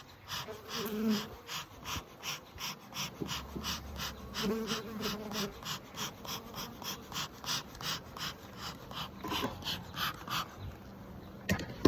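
Beekeeper's smoker bellows pumped over and over, puffing out smoke in short whooshes about three times a second, with honeybees buzzing at the open hive. The puffing stops shortly before the end, and a single sharp click follows.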